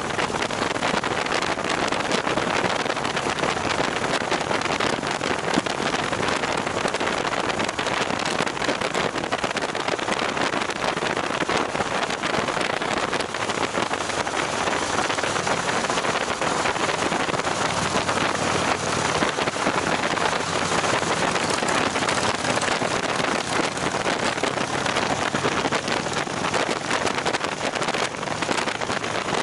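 Steady wind rush over the microphone of a motorcycle cruising at highway speed, with the engine running underneath.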